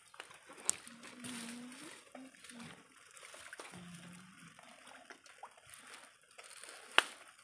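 Shallow water trickling and sloshing as hands feel through mangrove mud and water for clams, with one sharp click near the end.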